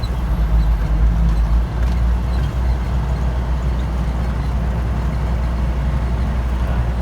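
Diesel engine of a 1995 Kenworth T800 truck running steadily on the move, a constant low drone with road noise.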